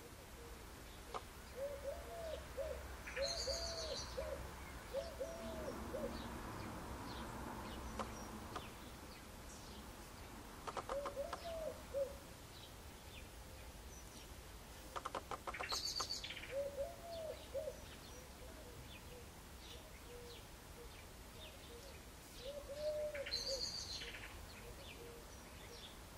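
Background birdsong: a dove cooing in short low phrases, repeated several times, with occasional high thin chirps from small songbirds and two brief rattling calls near the middle.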